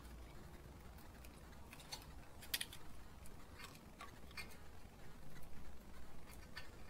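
Faint metallic clicks and taps of a brake pad being handled and fitted against a Mitsubishi Outlander's front brake caliper, a handful of scattered clicks with the sharpest about two and a half seconds in.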